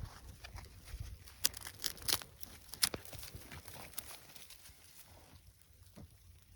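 Outdoor fire of dry grass and wood crackling, with irregular sharp pops that come thickest in the first three seconds and thin out after.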